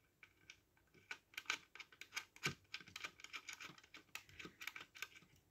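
Faint, irregular small clicks and ticks, several a second, as the double-sided mounting screws for a Noctua CPU cooler are handled and screwed into place.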